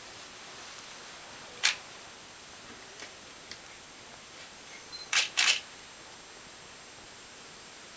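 Three short, sharp clicks over a steady faint hiss: one about two seconds in, then a quick pair about five seconds in.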